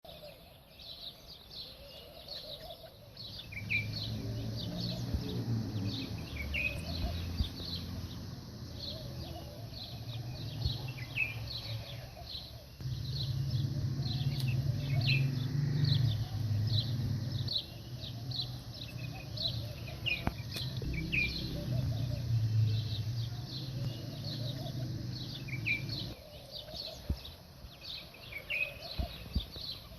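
Many small birds chirping busily in short, repeated high notes, over a low rumble that comes and goes in long stretches.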